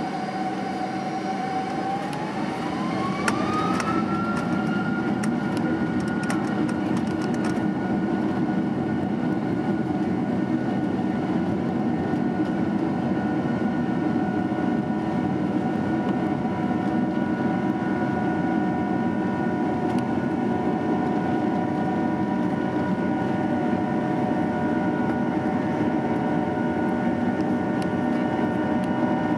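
Rolls-Royce engines of a Boeing 767-300ER powering up to takeoff thrust, heard from inside the cabin. A whine rises in pitch over about two seconds and then holds steady over a loud, steady rumble as the jet rolls down the runway.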